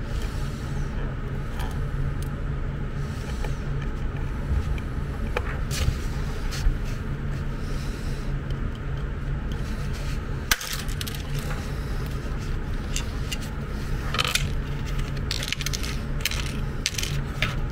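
Plastic clicks and scrapes as the snap-fit case of a corded electric-bed hand remote is pried and pulled apart, with a sharp click about ten seconds in and a run of clicks near the end. A steady low hum lies underneath.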